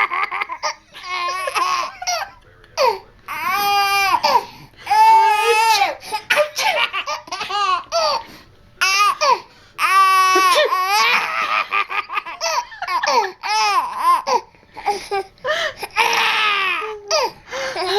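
A baby laughing hysterically in repeated high-pitched peals.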